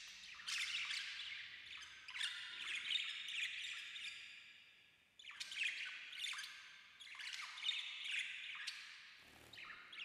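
Budgerigars chattering and warbling in rapid bursts of chirps, breaking off briefly about halfway through.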